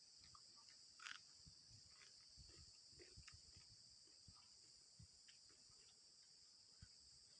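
Faint eating sounds: soft low thuds and small wet clicks of chewing and of rice being handled, with a sharper click about a second in. A steady high-pitched chorus of crickets or other insects runs underneath.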